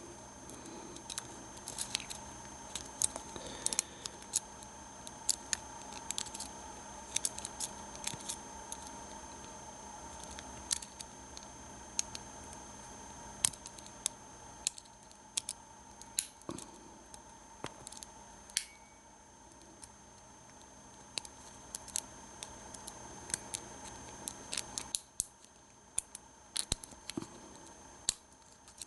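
Single-pin picking an American 1100 padlock: the pick and tension wrench making irregular small metallic clicks and scrapes as the pin tumblers are lifted and set.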